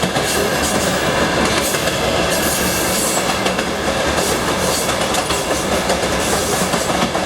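Passenger train running at speed, heard from inside the carriage: a steady rumble and rush with the clickety-clack of wheels passing over rail joints.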